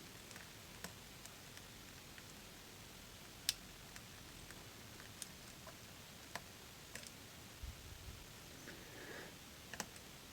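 Faint, scattered clicks of a lock pick and pins inside a Robur safe deposit box lock while its gin-bottle spool pins are being picked, with one sharper click about three and a half seconds in.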